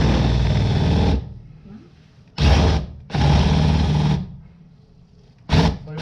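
Electric drill with a hardened steel bit boring out a broken fiberglass handle stub from a hatchet head held in a vise. It runs in start-stop bursts: about a second, a short blip, another second, then another short blip near the end.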